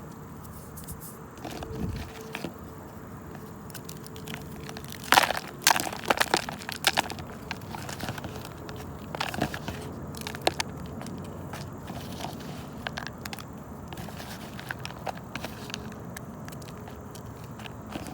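A gritty green material being crushed by hand, in irregular crunches and crackles. The loudest clusters of crunching come about five to seven seconds in and again around nine to ten seconds.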